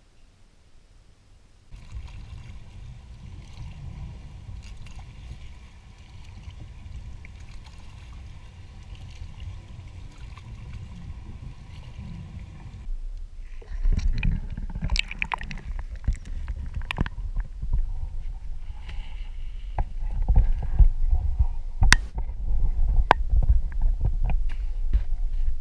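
Kayak being paddled through lily pads: a low steady rumble at first, then about halfway through, heard with the camera underwater, louder muffled sloshing with sharp clicks and knocks.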